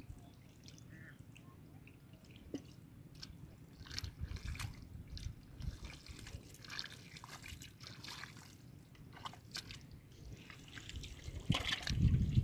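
Hands working in shallow muddy water: small scattered splashes, drips and wet squelches. It gets louder near the end.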